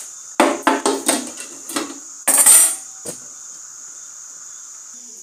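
Metal cookware clattering as a dish is covered: a run of ringing knocks over the first two seconds, then one louder scraping clatter about two and a half seconds in.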